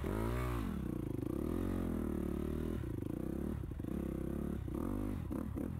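Dirt bike engine heard close up from the bike, revving up and down repeatedly while riding. A few short knocks come in the last couple of seconds.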